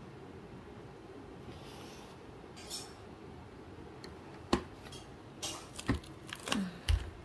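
A few sharp clicks and clinks, like small hard objects knocking together, come in the second half over a low steady hum.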